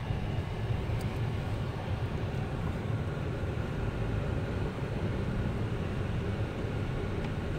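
Jeep Wrangler JK driving on a snowy road, heard from inside the cabin: a steady low rumble of engine and road noise.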